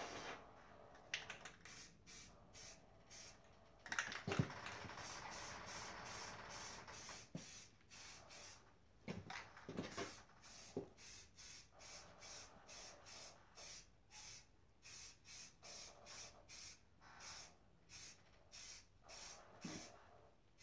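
Aerosol can of matte black wheel paint spraying: a longer hiss about four seconds in, then many short bursts about two a second, with a few knocks of handling.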